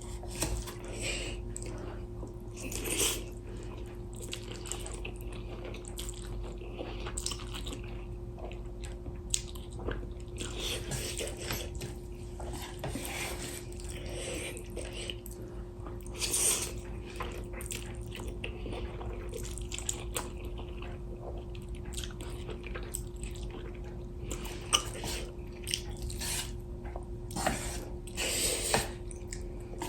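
A person eating spicy instant noodles and kimchi: scattered, irregular wet slurps and chewing sounds over a faint steady hum.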